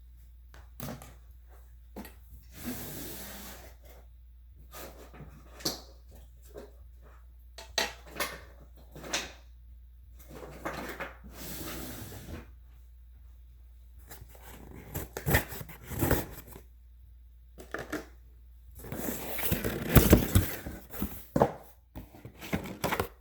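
A cardboard speaker box being opened by hand: clicks and knocks, cardboard scraping and sliding, and packaging rustling, loudest near the end.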